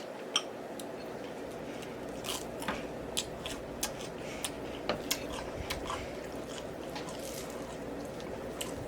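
A person chewing and biting food close to the microphone, with short wet mouth clicks every second or so over a steady low room hum.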